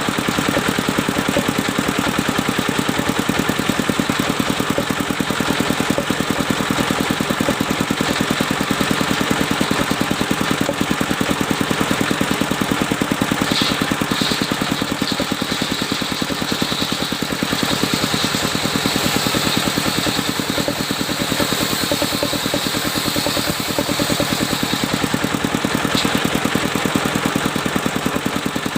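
Engine of a mobile circular sawmill running steadily with a fast, even pulse. From about halfway a high whine joins it for some ten seconds, as the saw blade cuts through mahogany.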